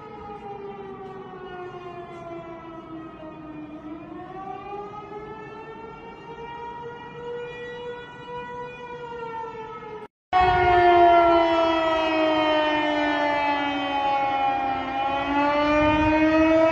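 Outdoor civil-defense warning siren wailing, a tornado warning, its pitch sliding slowly down and back up. About ten seconds in the sound cuts out briefly and a louder siren carries on with the same slow rise and fall.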